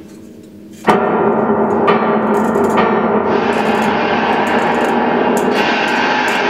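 Experimental ensemble music. A sudden loud, gong-like strike comes about a second in, then a dense ringing texture builds, with further strikes, from an electric guitar through effects pedals, a clarinet and a bowl struck with a mallet.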